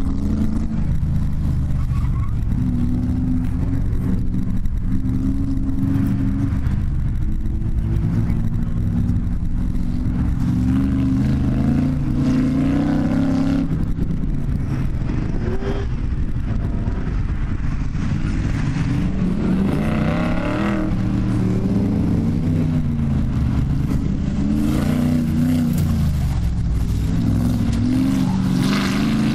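AC Cobra 427's big-block V8 running hard under racing load. The revs climb and drop over and over as the car accelerates and lifts through the slalom.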